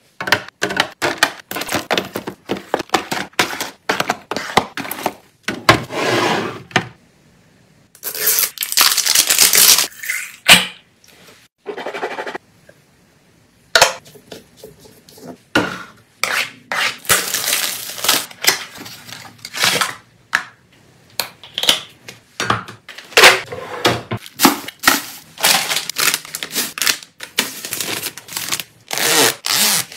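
Household items being unpacked and put away by hand: a dense run of clicks, taps and clatters of objects set down and handled, with a longer noisy stretch of packaging handled about eight seconds in and brief pauses near the middle.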